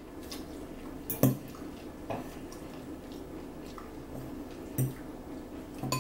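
Metal forks clinking against salad bowls and plates while eating: four or so separate short clinks, the loudest about a second in.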